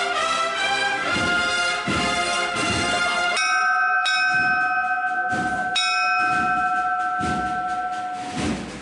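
Cornet and drum band playing the close of a Holy Week procession march. A quick melody with drumbeats gives way, a bit over three seconds in, to a long held chord, with a bell ringing over it.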